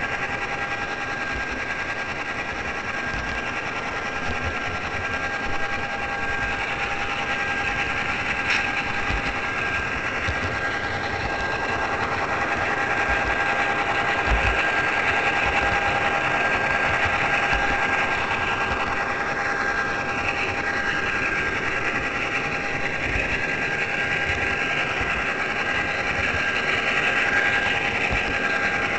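HO scale model train running along its track, heard from a camera riding on the train: a steady whine from the locomotive's small electric motor and gearing, with irregular low knocks from the wheels on the rails.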